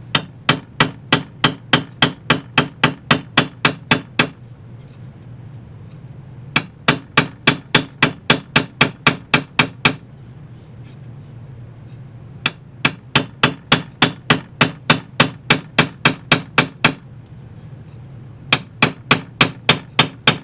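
Small hammer tapping a metal punch in quick, even runs of about four strikes a second, with four runs broken by short pauses, driving old hinge tacks out of a wicker basket's wooden frame.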